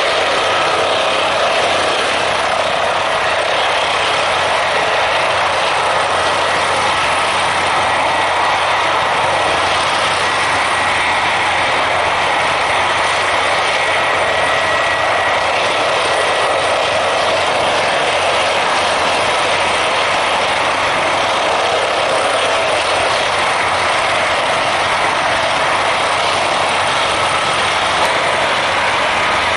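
Airbus ACH145 (BK117 D-3) helicopter hovering low, its twin turboshafts, five-bladed main rotor and fenestron tail rotor making a steady, loud din. A thin high whine stands out above it for several seconds in the middle.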